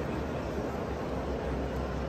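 Steady background noise inside a large stone church nave: a low, even rumble under a faint murmur of visitors' voices.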